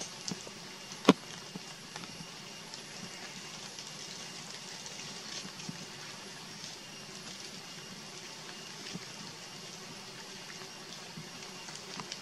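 Steady hiss of outdoor forest ambience with a faint high steady tone, broken by one sharp loud click about a second in and a few fainter ticks.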